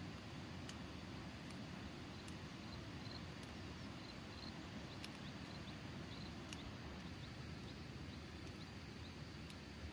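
Quiet rural outdoor ambience: a steady low hiss with faint, short high-pitched chirps from small creatures and light clicks now and then.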